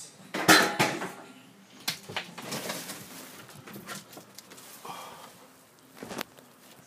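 Knocks and clicks of a storm door being pushed open and let go. The loudest knock comes about half a second in, with a sharp click near the end.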